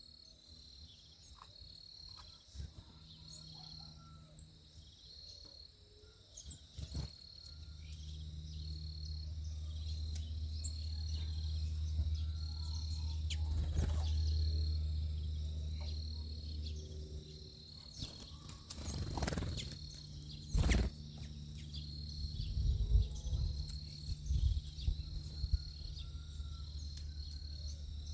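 Backyard ambience: insects trilling in a steady high pulsing drone, with a low rumble that swells through the middle and a few sharp taps and clicks.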